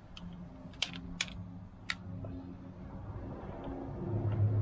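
A few sharp clicks and light knocks of white PVC pipe being handled, pulled apart and lowered into a kayak's plastic deck hatch. Under them a steady low hum that grows a little louder near the end.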